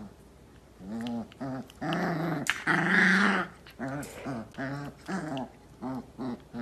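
Dogs play-growling: a string of short, pitched growls, about two a second, with a longer, rougher growl near the middle.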